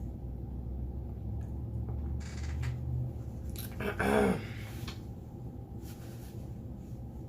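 Small clicks and mouth noises from a person eating. About four seconds in comes one short vocal sound that falls in pitch, the loudest moment.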